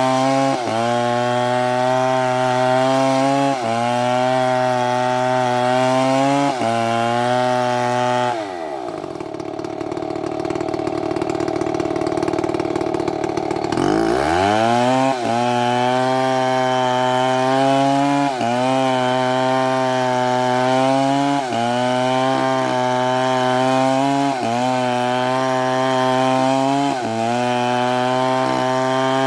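STIHL two-stroke chainsaw running at high revs, its pitch dipping briefly and recovering about every three seconds. About eight seconds in the revs drop away to a low idle, and after about five seconds it revs back up to full speed.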